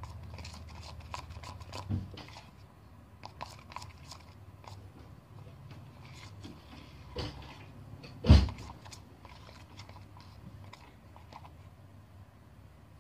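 Soapy foam being stirred and squished in a clear plastic tub with a plastic spoon: soft, sticky, wet clicks scattered throughout, and a single sharp knock about eight seconds in.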